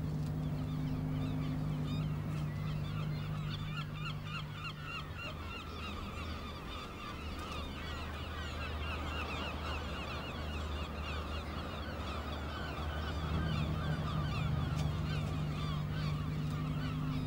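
A flock of birds calling, with many short calls overlapping in a continuous chatter, over a steady low hum.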